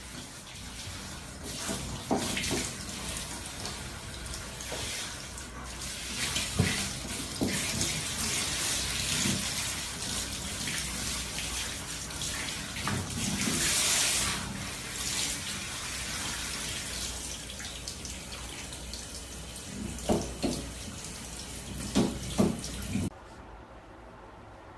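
Handheld shower head spraying water, a steady hiss of spray with a few short knocks and splashes, most of them near the end; the sound stops suddenly shortly before the end.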